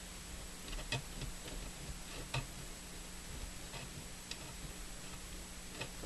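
Light, irregular clicks and taps from fingers working the radio's dial pointer and tuning mechanism, the strongest about a second in and again near 2.5 seconds, over a faint steady low hum.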